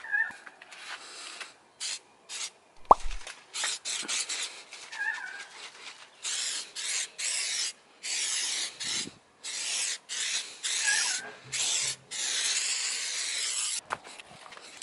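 Aerosol tire-shine can spraying onto a tire in a long series of hissing bursts, some brief and some held for a second or more. A single sharp knock comes about three seconds in.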